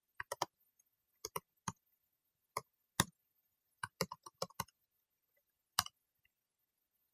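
Computer keyboard keystrokes: scattered sharp clicks, single and in small groups, with a quick run of them around four seconds in and silence between.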